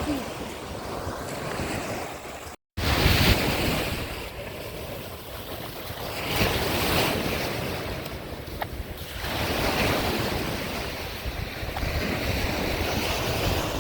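Surf washing onto a beach, swelling and fading every few seconds, with wind buffeting the microphone. The sound cuts out for an instant about two and a half seconds in.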